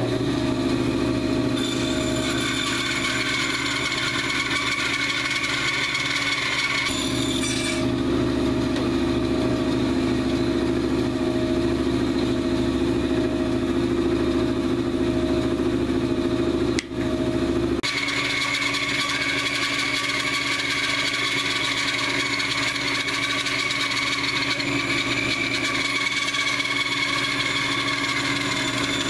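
Band saw with a 3/8-inch blade running steadily while a dry log is fed through it to cut off a slice. The running sound changes in pitch a couple of times and drops out for an instant partway through.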